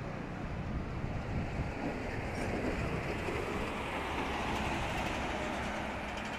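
Container ship passing close by: a steady low rumble from the ship with the rush of water along its hull, swelling a little midway.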